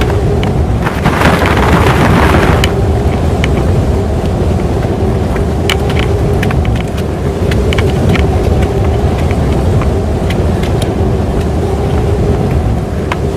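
Strong storm wind buffeting the microphone in a steady, heavy rumble, with a stronger gust about a second in that lasts a second and a half. Scattered sharp ticks sound throughout.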